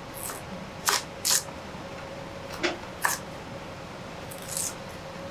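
Kitchen prep work at a wooden chopping board: a handful of short, sharp clicks and knocks at irregular intervals. A faint steady hum runs underneath.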